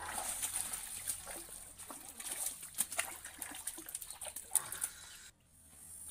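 A hooked snakehead fish thrashing and splashing at the surface of a small pond as it is reeled in and lifted from the water, with irregular sharp slaps and splashes. The splashing stops abruptly about five seconds in.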